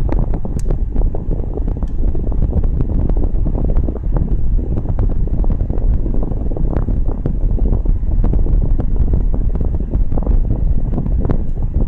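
Air from a car's air-conditioning running at idle, buffeting the microphone: a loud, steady low rumble with crackle.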